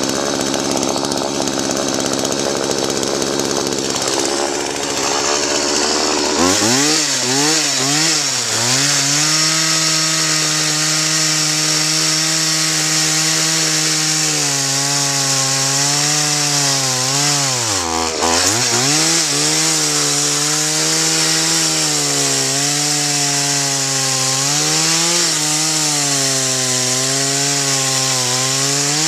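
Chainsaw running at high revs while cutting a wooden slab into pieces. For the first six seconds there is a steady rushing noise. After that the engine's pitch comes through high and even, sagging and recovering several times as the chain bites into the wood, with one deep sag a little past halfway.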